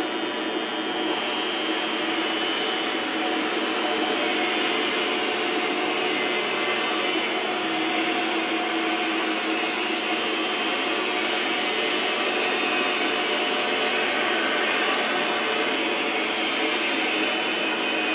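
Yunnan CY-K500T flat-bed CNC lathe running: a steady machine whir with a few held tones in it, a little louder from about four seconds in.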